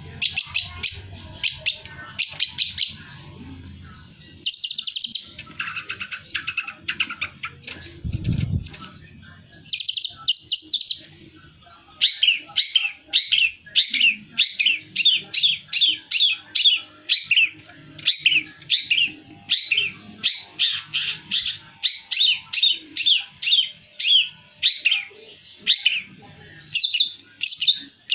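Long-tailed shrike (cendet) singing in its cage: a fast chatter of short, sharp high notes, then from about twelve seconds in a steady run of quick falling notes, several a second in short phrases.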